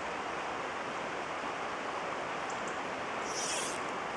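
River water rushing steadily past, a constant even hiss, with a short higher hiss about three and a half seconds in.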